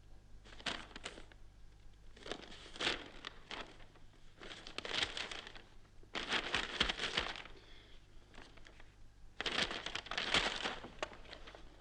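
Sheets of paper being handled, rustling and crinkling in about five separate bursts.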